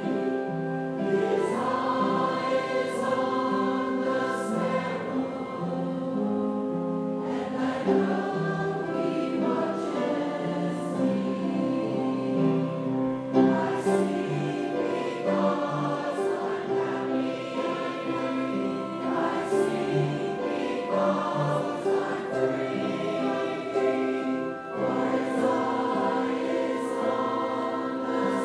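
Congregation singing a hymn together in sustained, held notes.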